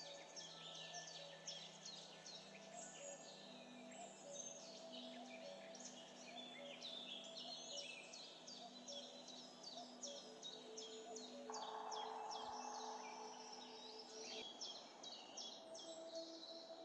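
Quiet background track of soft held notes with dense, rapid birdsong chirping over it.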